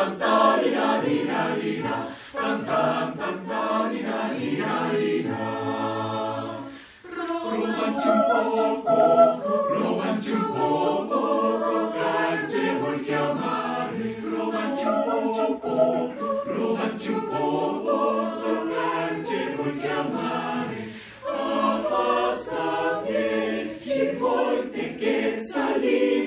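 Mixed choir of men's and women's voices singing a cappella, with a chord held steady about six seconds in and short breaks between phrases near seven and twenty-one seconds.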